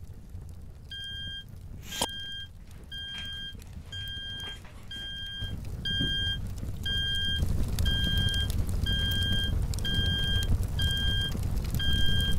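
Smoke alarm beeping: evenly spaced electronic beeps, a little over one a second, starting about a second in and keeping on. A low rumble grows louder under it from about halfway.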